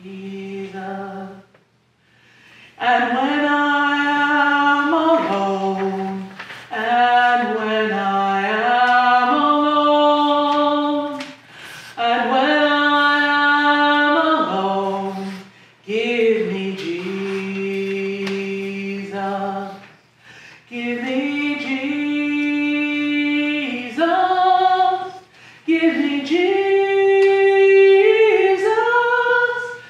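A woman singing a slow song solo and unaccompanied, in long held notes with short breaths between phrases.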